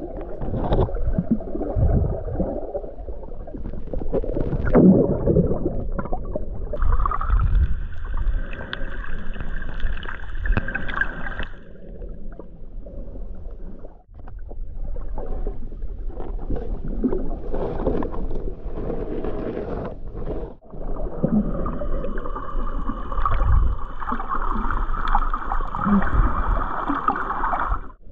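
Underwater sound while snorkeling: muffled sloshing and gurgling of water moving past the camera. Twice a steady high whine comes in and cuts off abruptly, each lasting several seconds.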